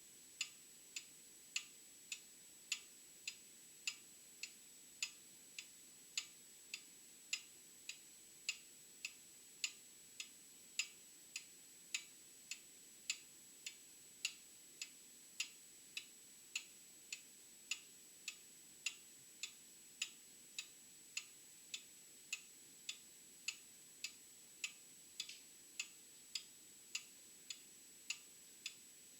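Old mechanical clock ticking steadily, a little under two ticks a second, the ticks alternating slightly in strength like a tick-tock.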